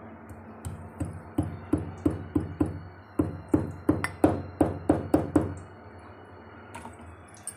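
Cardamom pod being pounded in a metal mortar with a metal pestle: a run of about fifteen sharp knocks, about three a second, each with a short metallic ring. The knocks stop after about five seconds.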